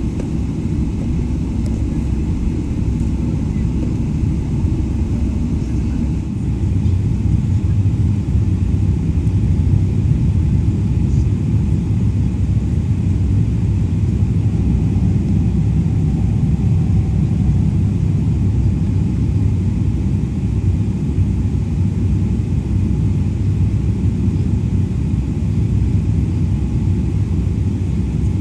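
Boeing 777-300ER cabin noise: a steady low rumble of the engines and airframe heard from inside the cabin, growing louder about six or seven seconds in and then holding steady.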